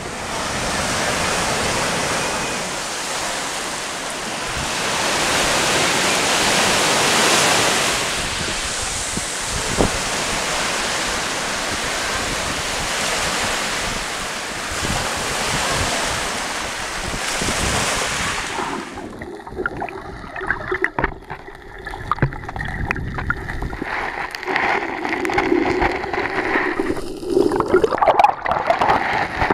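Surf washing in and draining off a beach, a steady rush of breaking waves. About two-thirds of the way through the sound turns muffled and underwater, with sloshing and many small clicks and crackles.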